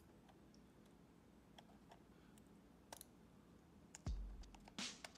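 Faint, scattered clicks of fingernails picking at the plastic underside of a Razer DeathAdder Elite gaming mouse as its stock mouse skates are worked loose. About four seconds in, louder low thumps come in.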